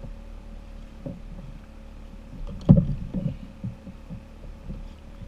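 Low knocks and bumps on a fishing kayak's hull while the angler fights a fish from the seat. One loud thump comes a little under three seconds in, followed by several softer ones, over a faint steady hum.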